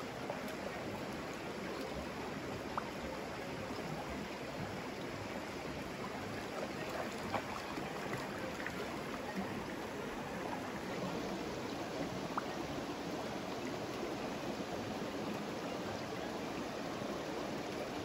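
Shallow, rocky mountain stream running over stones, a steady babble with a few faint small clicks.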